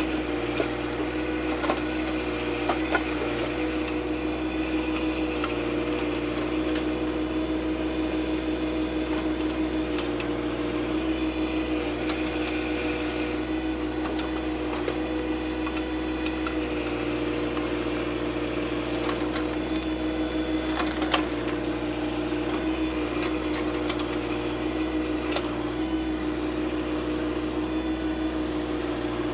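John Deere 2025R compact tractor's three-cylinder diesel running steadily while its backhoe digs through shaly ground, with a few sharp knocks from the bucket hitting rock.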